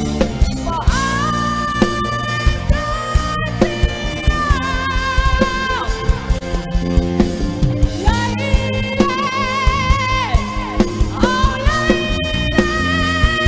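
Pop ballad music played loud through a PA system. A held, wavering lead melody glides between long notes over a steady drum beat and bass line, with no sung words.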